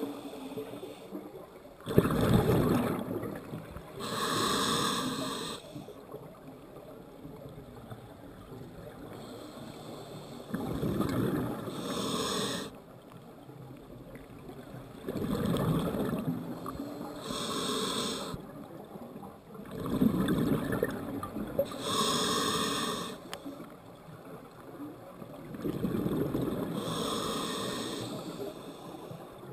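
Scuba diver breathing through a regulator: about five slow breaths, each an inhale through the demand valve followed by a burst of exhaled bubbles.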